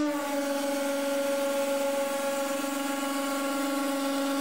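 Hydraulic press's pump motor running under load with a steady hum and a hiss, as the ram crushes an aluminium cylinder. Its pitch drops slightly just after the start, as the load begins to build.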